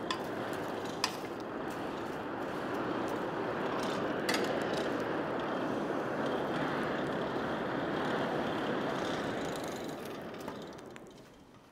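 A coal forge's blower running, forcing air into the burning coal fire with a steady rush. It builds up at the start and dies away near the end, with a few sharp clicks from the fire.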